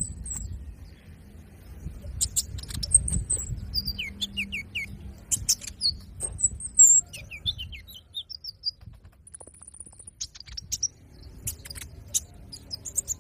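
Caged sunbird (konin) singing in quick, high-pitched chirps and short twittering runs, with a brief high trill after a short pause about two-thirds of the way in.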